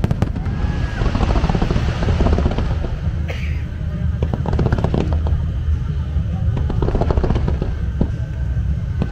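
Aerial fireworks display going off: a dense run of sharp bangs and crackles over a deep, continuous rumble.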